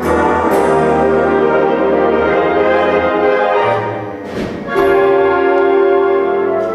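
Concert band playing sustained brass and wind chords, with percussion strikes near the start and a crash about four and a half seconds in, followed by a long held chord.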